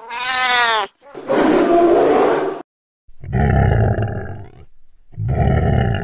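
Animal calls: a cat's drawn-out yowl falling in pitch, then a harsh growl and two long, deep roars like those of a big cat.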